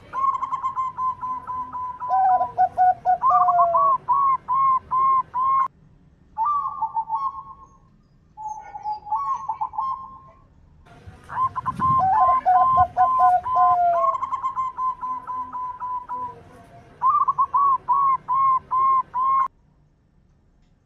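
Zebra dove (perkutut) singing: long rhythmic runs of short, rapid cooing notes. A quieter stretch of shorter phrases comes in the middle, then a second long run follows and stops shortly before the end.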